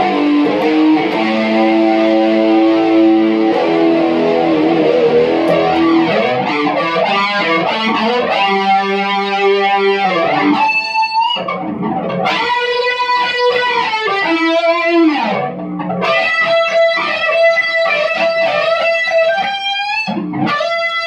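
Strat-style electric guitar played through a pedalboard of effects into amplifiers. It opens with thick sustained chords, then moves to a single-note lead with sustained notes, string bends and vibrato.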